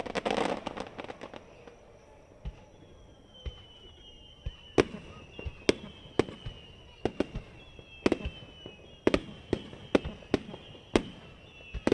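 Aerial firework shells bursting. A loud crackling burst fades at the start, then a rapid run of sharp bangs follows, one or two a second, overlaid by several whistling shells, each a thin whistle sliding slowly down in pitch.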